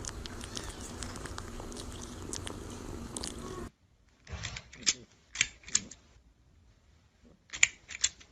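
A cat purring steadily. About halfway through it cuts off and is followed by a few short, sharp sounds, loudest near the end.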